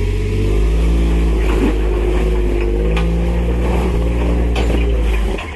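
Off-road vehicle engine running hard under load, revving up and down, with a few light knocks. It drops away about five seconds in.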